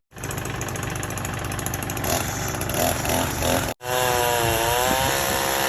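Gasoline chainsaw running at high revs while cutting tree limbs, its pitch dipping and recovering in the second half as the chain bites into the wood. The sound breaks off abruptly twice.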